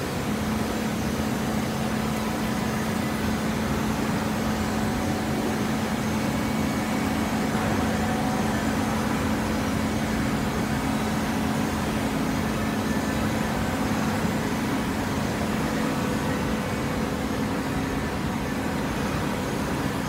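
Horizontal hydraulic baling press running: a steady machine hum with one constant low tone over an even wash of mechanical noise.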